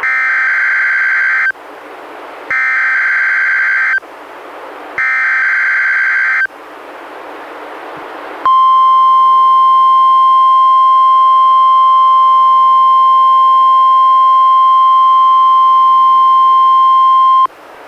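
NOAA Weather Radio Required Weekly Test: three bursts of SAME digital header data, each about a second and a half long with a gap of about a second between them. About two seconds later comes a steady 1050 Hz warning alarm tone, held for about nine seconds before it cuts off.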